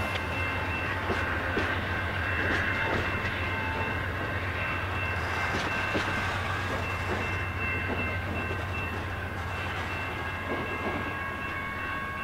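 Amtrak Superliner passenger cars rolling away over the rails, with a steady rumble, scattered wheel clicks and a steady high-pitched squeal from the wheels.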